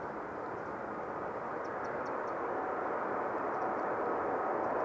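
Airbus A380's four jet engines at takeoff thrust just after liftoff: a steady rushing roar with faint whining tones, slowly growing louder as the airliner climbs toward the listener.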